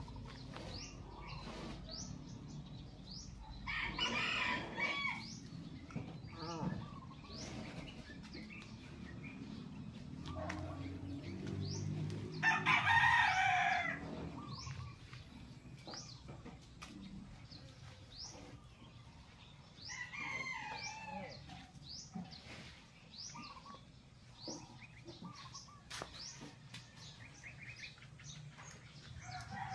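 Roosters crowing four times, about every eight seconds, the loudest crow near the middle, over steady chirping of small birds.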